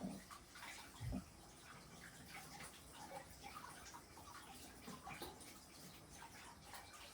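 Faint washing-up at a sink: water splashing with small clinks of dishes, and a dull thump about a second in.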